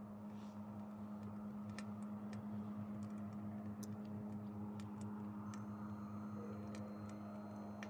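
Sticks burning in a beer-can wood stove, giving scattered sharp crackles, over a steady low hum.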